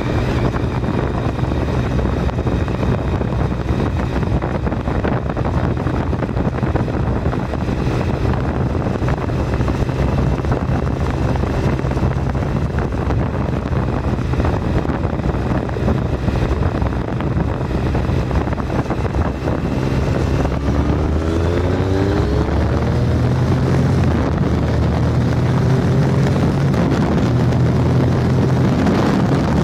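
Triumph Tiger 1050's inline three-cylinder engine running under way, with wind rushing over the handlebar-mounted microphone. About two-thirds of the way through, the engine note rises as the bike accelerates.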